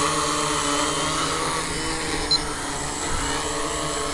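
Homemade quadcopter's four electric motors and propellers whining steadily as it flies low, the pitch wavering a little as the throttle is worked.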